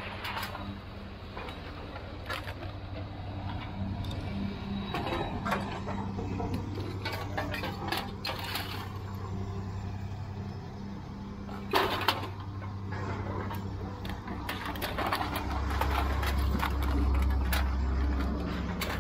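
Empty aluminium cans clattering and rattling as they are swept with a push broom and tossed out of a wooden trailer bed, with one loud clank about twelve seconds in. A steady low engine hum runs underneath and swells near the end.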